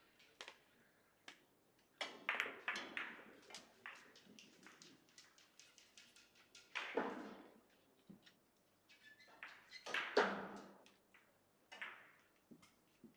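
A Russian pyramid billiard shot: the cue strikes, then a quick run of sharp clacks as the balls hit one another about two seconds in. Scattered clicks and knocks follow as the balls keep moving, with two louder knocks later on.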